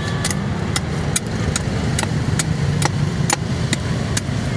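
Rapid, evenly spaced chops of a blade into a coconut, about two and a half a second, over the steady low hum of an idling engine.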